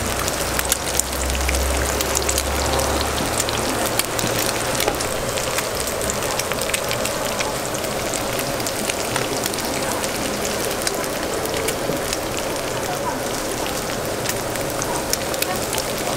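Eggs and burger buns sizzling on a hot flat-top griddle: a steady sizzle thick with fine crackling pops.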